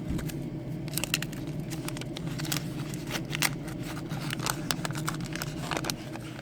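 Waxed-paper wrapper of a resealed card pack crinkling and crackling in the hands as it is torn open, in many irregular sharp crackles over a steady low hum.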